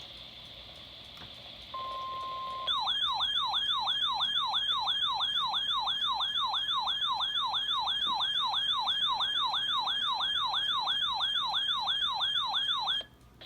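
A short steady electronic beep, then a loud electronic yelp-style siren tone whose pitch sweeps rapidly up and down about three times a second. The siren stops suddenly shortly before the end.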